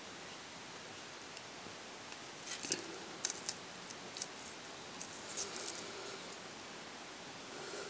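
Faint clicks and rustles of handled beadwork: a beading needle and thread drawn through small beads, the beads clicking against each other. The clicks come in scattered clusters from about two seconds in to about six seconds in.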